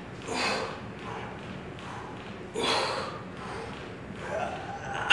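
A lifter's sharp, forceful exhalations, three in a row about two and a half seconds apart, with each rep of a shoulder exercise.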